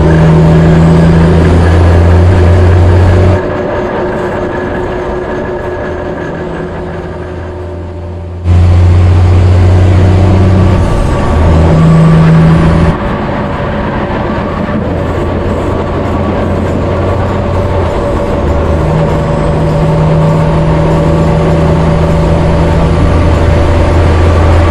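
Heavy semi-truck's diesel engine running hard at highway speed: a deep, steady drone. It drops and jumps in loudness abruptly several times, as if the sound cuts between shots closer to and farther from the truck.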